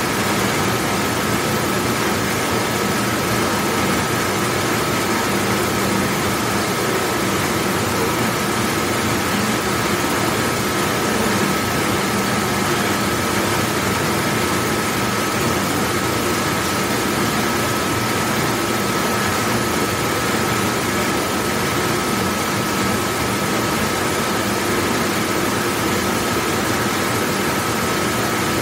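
Large commercial dishwashing machine running: a steady rush with a low hum and a thin constant whine above it, unchanging throughout.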